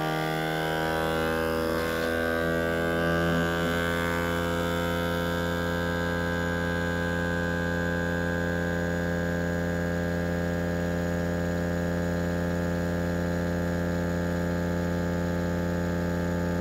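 Old electric vacuum sealer's pump running with a loud, steady hum, sucking the air out of a small mason jar through a hose and jar-sealer attachment. Its pitch settles a little over the first few seconds, then holds steady.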